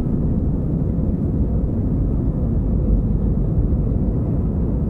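Airbus A320 at takeoff thrust, heard inside the cabin by the wing: a steady low rumble of the engines and rushing air as the airliner lifts off the runway and climbs.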